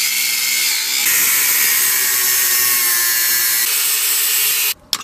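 Angle grinder with a cut-off wheel running and cutting into the metal housing of a hydraulic active engine mount held in a vice. It is a steady high grinding hiss that gets a little louder about a second in and cuts off suddenly near the end.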